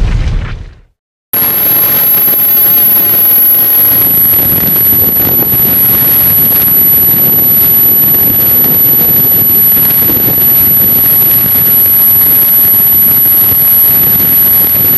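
The tail of a loud explosion sound effect fades out within the first second, then a short silence. After that a loud, steady rushing noise with no beat or rhythm, overlaid by a thin, constant high-pitched whine, holds unchanged.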